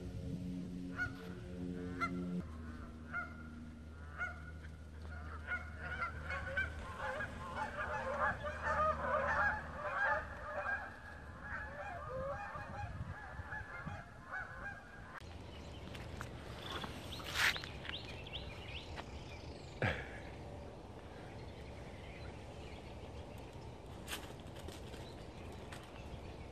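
A flock of geese honking, many overlapping calls that grow dense in the middle and stop about halfway through. After that it is quieter, with a few isolated sharp clicks.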